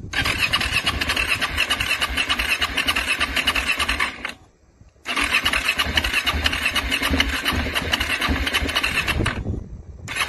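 KTM 690's electric starter cranking the single-cylinder engine in two long attempts of about four seconds each, separated by a short pause. The engine struggles to turn over and does not fire, and each attempt cuts off suddenly. A third attempt begins right at the end.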